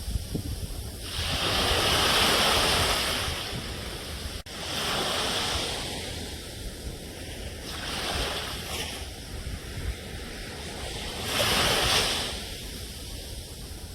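Ocean waves breaking and washing up a shore, surging louder every three to four seconds and then falling back, over a steady low rumble of wind on the microphone. The sound drops out for an instant about four seconds in.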